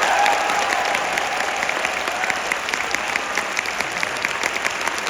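A large theatre audience applauding steadily, a dense patter of many hands clapping.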